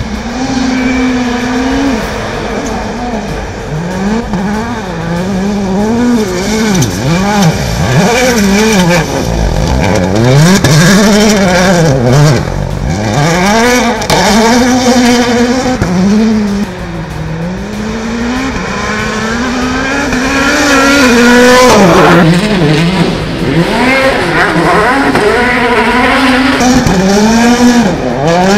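Hyundai i20 WRC rally car's turbocharged 1.6-litre four-cylinder engine revving hard as it laps the course. Its pitch climbs and drops again and again through gear changes and lifts for corners.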